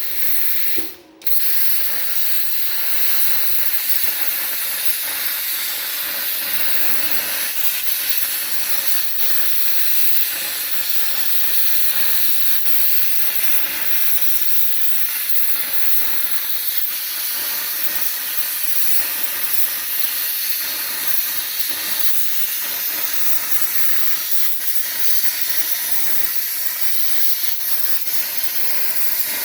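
Herocut Cut 55X air plasma cutter's torch cutting steel on a CNC table: a loud, steady hiss of the plasma arc and air. It cuts out briefly about a second in, then starts again.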